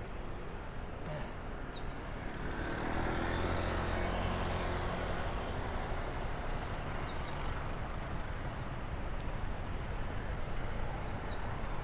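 Road traffic noise heard from a bicycle riding in traffic: a steady rush of passing vehicles and tyres, with a motor vehicle's engine swelling louder about three seconds in and easing off again.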